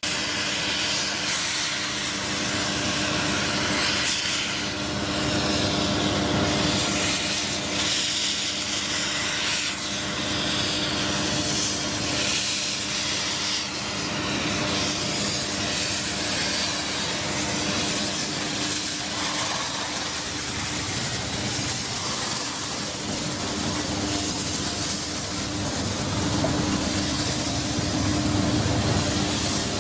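Train on a small heritage railway running steadily, a constant hiss over a steady hum with no clear beat.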